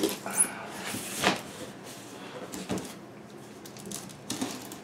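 Cardboard shipping boxes being handled and opened: a few separate knocks and scrapes of cardboard as the boxes are shifted and a flap is pulled, with a brief high squeak about half a second in.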